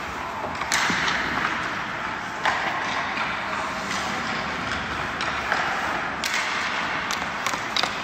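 Ice hockey skate blades scraping and carving on the ice, the hiss starting up sharply several times, with sharp clacks of sticks and pucks in between.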